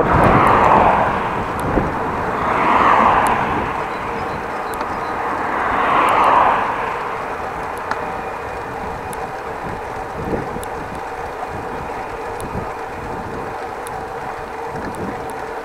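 Outdoor road noise heard from a moving bicycle: three passing vehicles swell and fade about three seconds apart, then a steadier, quieter hum with faint held tones.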